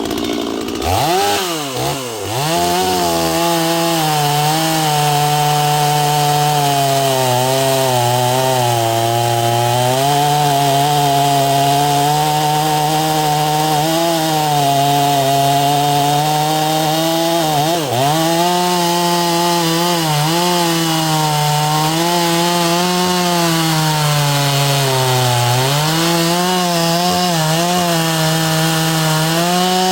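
Two-stroke chainsaw, a Stihl MS250 clone with an 18-inch bar, revving up about a second in and then running at high speed while cutting through a log. Its engine pitch sags repeatedly under load and dips sharply once partway through.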